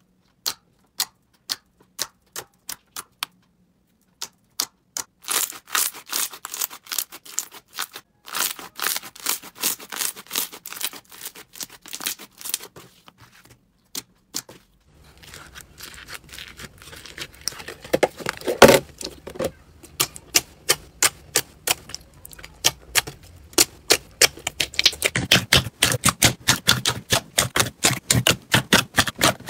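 Hands pressing, stretching and poking clear glitter slime, trapped air pockets popping in irregular runs of sharp clicks and crackles with short pauses. In the last few seconds a thick glossy slime is squished, and the clicks come denser and fuller.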